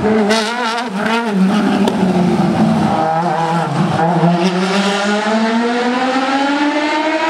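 Motorbike-engined hill climb racing car running hard through a tight chicane. Its high-revving engine note wavers early on, dips about four seconds in, then climbs steadily as the car accelerates away.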